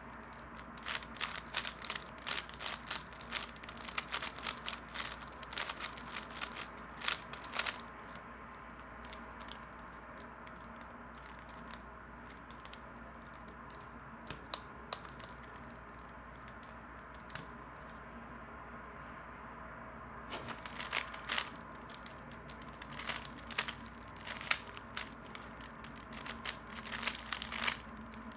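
3x3 Rubik's Cube being turned fast in a timed solve: quick runs of plastic clicks and clacks, with a stretch of about twelve seconds in the middle holding only the odd click.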